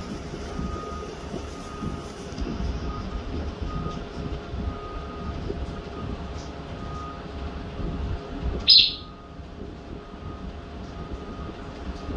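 African grey parrot giving one short, loud, high chirp about two-thirds of the way through, over a steady low rumble.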